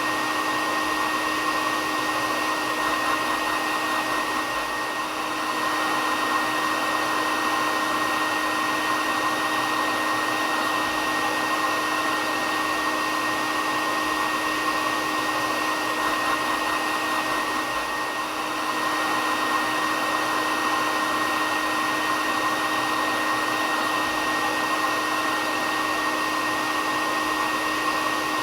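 Hair dryer running steadily: a constant rushing air noise with a steady whine over it, dipping slightly twice.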